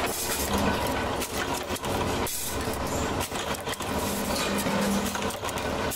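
Sheet-metal press and workshop machinery running: a steady motor hum with irregular metallic knocks and clanks.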